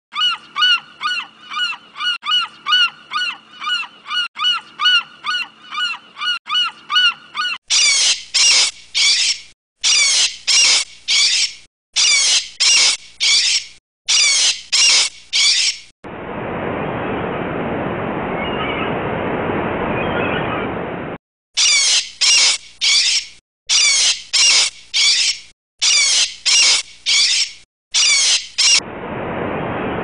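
Gulls calling: first a quick series of repeated calls, about three a second, then loud calls in clusters of three with short gaps between. The calls give way twice to a steady rushing noise that cuts in and stops abruptly.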